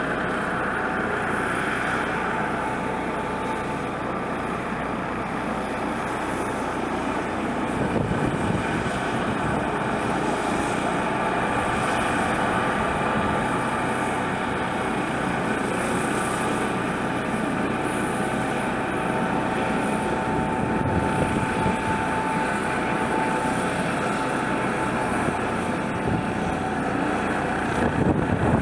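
Eurocopter EC155 B1 helicopter running on the ground with its main rotor turning: the steady whine of its twin turboshaft engines over the rotor noise.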